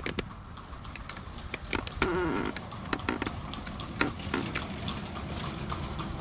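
Horse's hooves clopping on the paved road as an Amish horse and buggy goes by, in irregular sharp clops.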